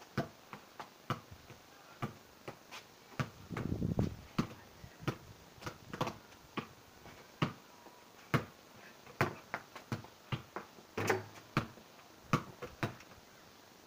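A pink football repeatedly bouncing and being struck on paving: a string of sharp, irregular thuds, roughly two a second, with a short rush of noise about four seconds in.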